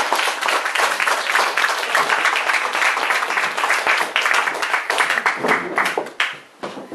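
Audience applauding, a steady clatter of many hands clapping that dies away in the last second.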